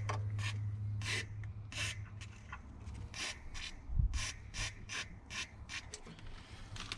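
WD-40 aerosol sprayed onto a car door lock mechanism in a dozen or so short, sharp hissing squirts at an uneven pace, with a dull knock about four seconds in. The mechanism is seized, which is why it is being sprayed.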